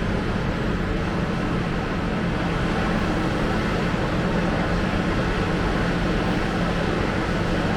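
Steady low drone of a heavy diesel engine running, from demolition plant, with no change in pitch.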